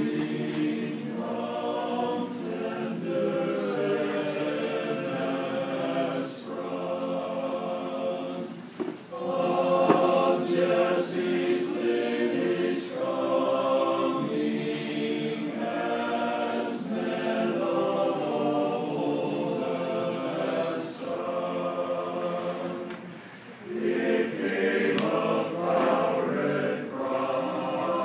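Men's barbershop chorus singing a cappella in close harmony, with short breaks between phrases about a third of the way in and again near the end.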